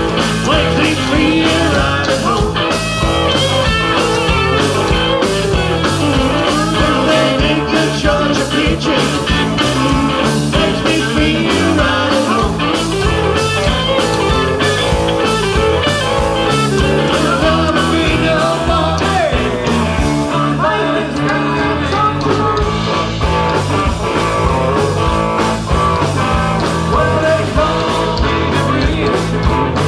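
Live southern rock band playing: electric guitars and a drum kit keeping a steady beat, with a woman singing.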